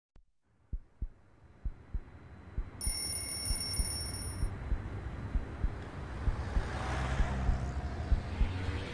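Heartbeat-like low thumps in pairs, repeating a little faster than once a second. A high ringing tone joins about three seconds in and stops after a second and a half, and a hiss grows beneath the thumps.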